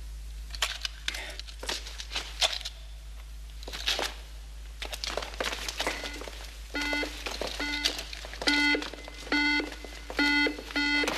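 Safe alarm sounding: an electronic beeping tone pulsing on and off at a steady pace, a little more than once a second, starting about six seconds in. Before it there are scattered soft clicks and knocks.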